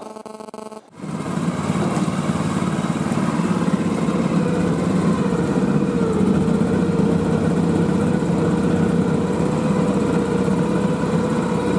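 A small motor vehicle's engine running steadily under way, starting about a second in.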